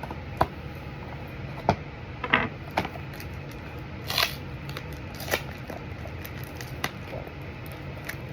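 A heavily taped cardboard box being pulled and picked at to open it: scattered scrapes and clicks of cardboard and tape, with a brief louder rasp about four seconds in.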